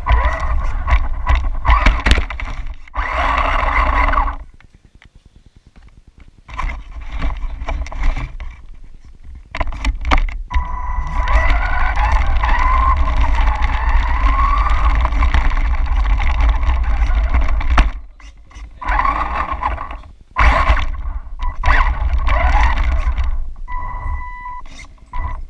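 On-board sound of a 1/10-scale 4WD RC car: its motor and drivetrain whining, rising and falling in pitch with the throttle, over a rumble and knocks from the tyres running on tiles and paving. It drops away briefly about five seconds in, then picks up again.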